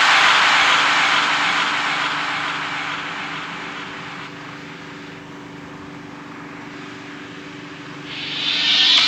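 Loud rushing noise that fades away over about four seconds, leaving a quieter steady low hum, then swells again near the end.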